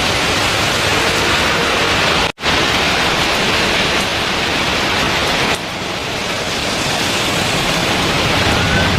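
Steady hiss of heavy rain. It cuts out for an instant about two seconds in, and the low rumble drops away a little past halfway.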